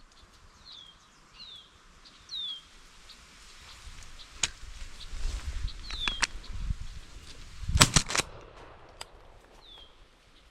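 A single shotgun shot about eight seconds in, the loudest sound by far. Before it, short falling bird whistles repeat every second or so.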